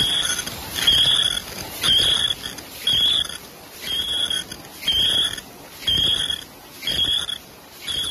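Automatic cooler-bag making machine running in its production cycle, about one stroke a second, each stroke giving a short high-pitched sound.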